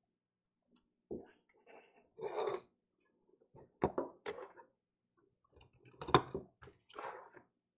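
Hands handling a laptop logic board and small parts on a workbench: scattered clicks, knocks and a brief rustle, with the loudest knock about six seconds in.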